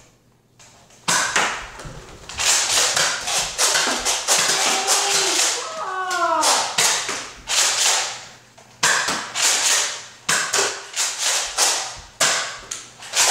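Toy Nerf blasters firing, a rapid, irregular string of sharp shots starting about a second in, each trailing off quickly. A short falling cry from a person comes about six seconds in.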